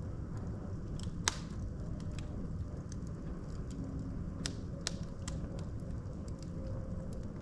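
Wood fire burning in a fireplace: a steady low rumble of flames with scattered sharp crackles and pops from the logs, the loudest pop about a second in.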